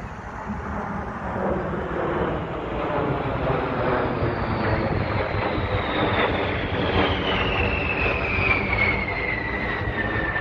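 B-52 bomber's eight jet engines passing overhead: a steady jet rumble with a high whine that slides down in pitch through the second half as the plane goes by.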